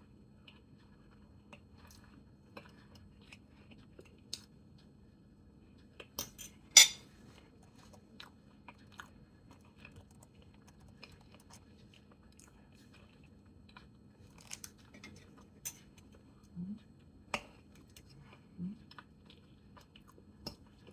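Close-up eating sounds of someone chewing yellow yam and corned beef: soft mouth smacks and scattered sharp clicks, the loudest about seven seconds in. Near the end there are two brief low hums.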